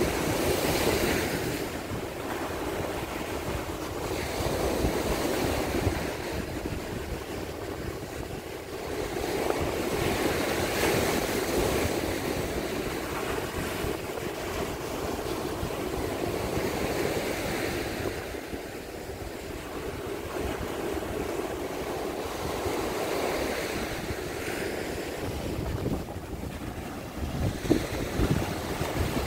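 Rough sea surf breaking on the shore, the wash swelling and falling away every several seconds, with wind buffeting the microphone.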